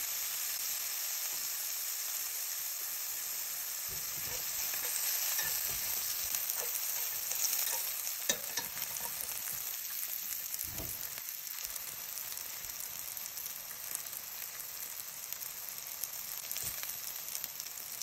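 Sliced porcini mushrooms and garlic sizzling steadily in oil in a cast-iron skillet, with a few light knocks and scrapes in the middle as wooden chopsticks turn the pieces.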